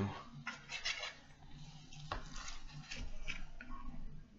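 A few faint clicks and taps of cutlery on a plate during a meal, about one a second.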